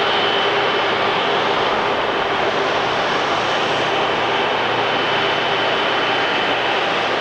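Jet engines of a widebody airliner running steadily: a loud, even roar with a faint steady whine above it.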